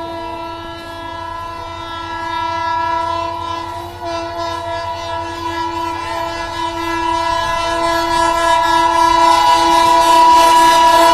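Air horn of a WAP-7 electric locomotive sounding in one long, continuous blast. It breaks briefly about four seconds in and grows steadily louder.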